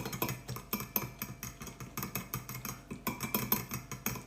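A utensil stirring gravy mix in a bowl, clinking and tapping against the sides in quick, irregular strokes, several a second.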